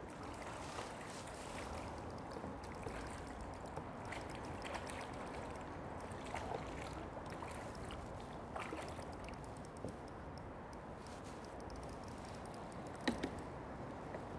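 Water lapping and trickling around a fishing kayak, with scattered light clicks of gear against the hull and one sharper knock about thirteen seconds in.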